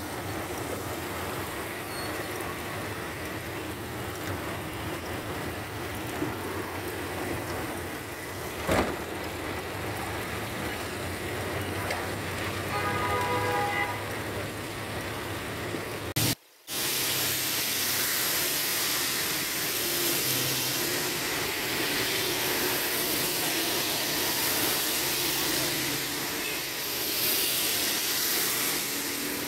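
Steady hiss of heavy rain and tyres on a wet, flooded road, heard from a moving vehicle in traffic. A vehicle horn sounds briefly about halfway through, and the sound cuts out for a moment just after, coming back with a brighter, louder hiss of rain and spray.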